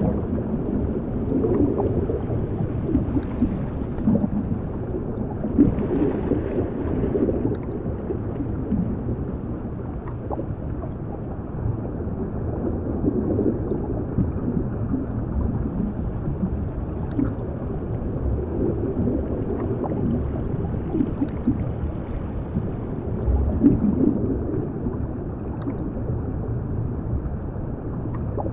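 Underwater sound effect: a steady, muffled wash of low water noise, with bubbling and gurgling that swell and fade every few seconds.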